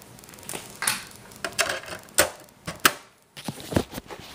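Irregular sharp plastic clicks and taps of a DVD case being handled and opened, about six in all.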